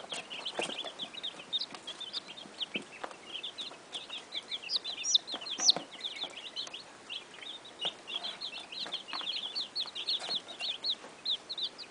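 A boxful of Cornish and Polish chicks peeping without pause: many short, high chirps overlapping, several a second, with a few louder, higher peeps about five to six seconds in.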